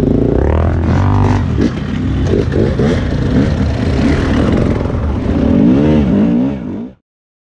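Dirt bike engines revving up and down in quick throttle bursts, the rider's own bike loudest and closest. The sound cuts off abruptly just before the end.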